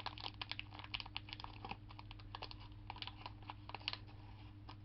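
Plastic snack wrapper being handled and pulled open: a rapid, irregular crackle of crinkling clicks that thins out near the end.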